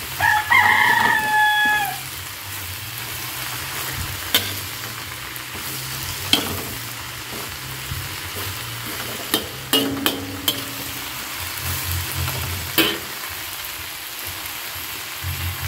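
Cabbage, carrots and green beans sizzling as they are stir-fried in a wok, with a metal spatula clicking and scraping against the pan several times. Near the start a loud pitched call lasts about a second and a half and falls in pitch at its end.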